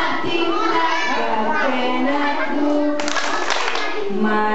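A group of young children singing an action song together in unison, moving through held notes, with a short burst of hand clapping about three seconds in.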